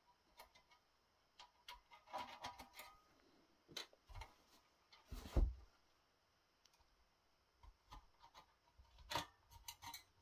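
Light clicks and scrapes of a metal Allen key in the faceplate screws of a metal rack-mount fan module, with a dull thump about five seconds in as the unit is handled on the foam pad.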